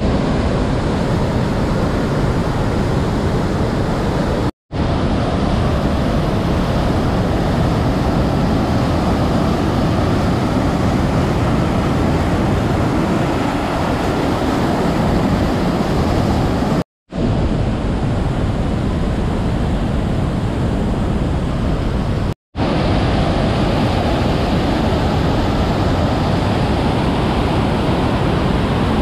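Rhine Falls waterfall: a loud, steady rush of falling water. It breaks off for a split second three times.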